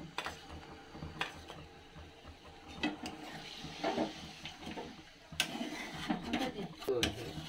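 Faint handling noise from a hand working over a cooking pot: a few light clicks and taps, scattered and unevenly spaced.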